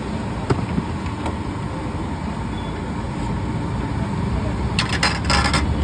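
Steady low rumble of road traffic, with a few light metal clicks of a slotted ladle against the kadhai in the first second or so and a brief loud burst of noise near the end.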